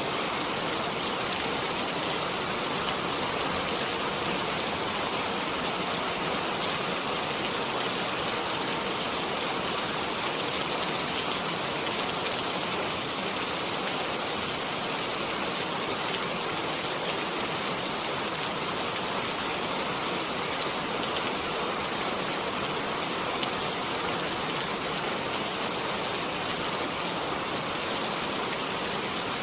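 Steady rain falling, an even hiss with fine drop patter.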